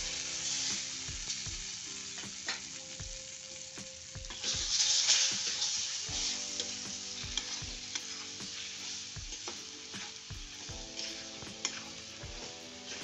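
Gram flour (besan) sizzling in hot ghee in a metal kadhai as a spatula stirs and scrapes it, the sprinkled water cooking off. The sizzle swells about four to five seconds in.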